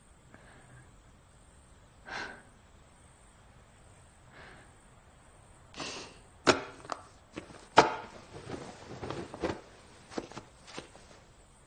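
A faint breath or sigh, then rustling and handling of a large stiff sheet of paper, with two sharp taps about a second apart in the middle and scattered smaller rustles and clicks after them.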